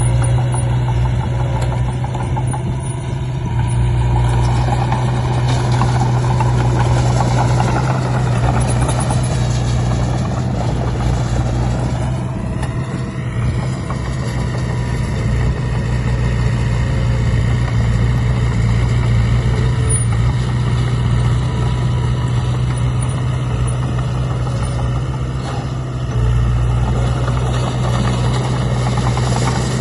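A motor running steadily with a deep hum. Its pitch wavers and glides about a third of the way in, and it drops in level for a stretch through the middle before picking up again near the end.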